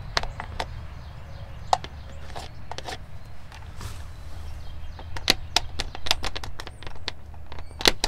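A pencil scratches around a plastic electrical box held against textured wood siding, marking its outline: a string of short, sharp scrapes and clicks, thickest in the second half. A low, steady rumble runs underneath.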